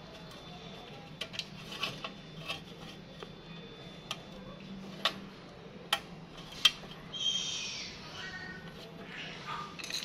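Sharp, scattered metallic clicks and taps as a bolt, a metal bracket and a plastic relay housing are handled and fitted onto a refrigerator compressor, the loudest a little past six seconds in. A short high-pitched call follows soon after seven seconds.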